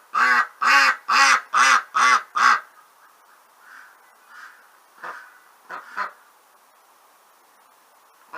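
Domestic duck quacking: six loud quacks in quick succession, about two a second, then a few quieter quacks some five to six seconds in.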